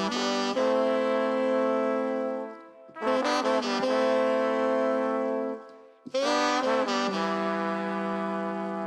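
A saxophone-led horn section playing the opening of a ska/reggae instrumental: three phrases, each a few quick notes rising into a long held chord, with short breaks between them.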